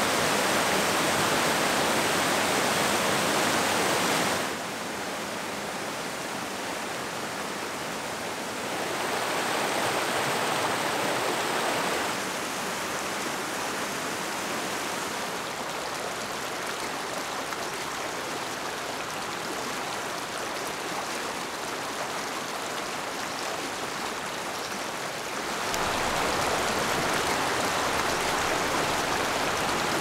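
Water from a river pouring over ledge waterfalls, a steady even rush. It drops abruptly to a quieter level about four seconds in, gets louder around nine seconds, quieter again around twelve, and louder near twenty-six.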